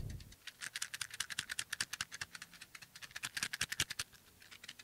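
A matchbox shaken rapidly, its matches rattling in quick clicks, picked up by a Kevler DM950 dynamic microphone from behind, the rear of its supercardioid pattern, so it comes through thin and fairly faint. The rattling thins out near the end.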